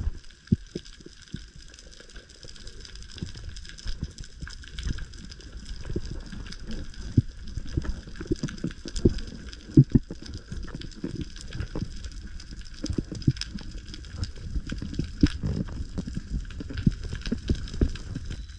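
Underwater sound through an action camera's housing as a spearfisher swims: an irregular crackle of small knocks and clicks under a faint steady high tone, with a louder knock near the middle.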